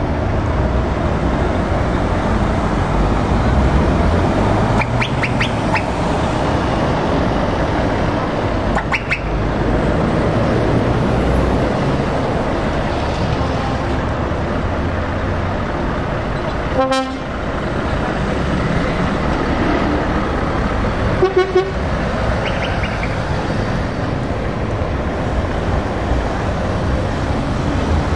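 Diesel lorry tractor units running steadily as they drive past one after another. Several short horn toots sound over the engines, the clearest two about two-thirds of the way through.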